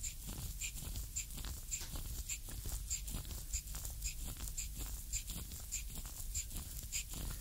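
Wooden reflexology stick rubbed in short, regular grinding strokes into the sole of a bare foot, about two strokes a second, over a low steady hum.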